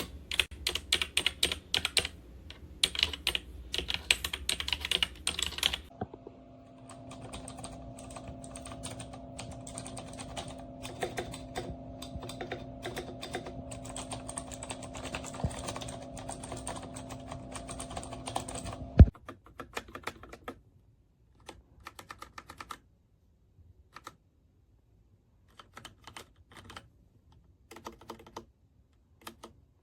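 Typing on a MageGee 75% mechanical keyboard with red switches: rapid keystrokes, loud for the first six seconds, then quieter over a steady hum. The hum cuts off with a sharp click about 19 seconds in, and scattered bursts of keystrokes with pauses between them follow.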